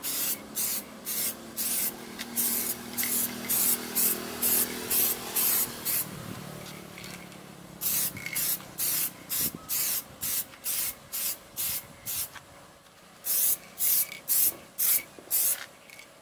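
2K clear coat aerosol spray can hissing in short, quick bursts, about two a second, with two short pauses, as a second, heavier coat is laid onto a headlight lens.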